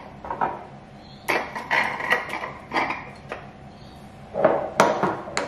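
Several glass storage jars clinking and knocking against each other while carried as an armful, in a series of irregular clatters.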